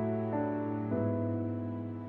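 Slow background music of held keyboard notes, changing pitch about once a second.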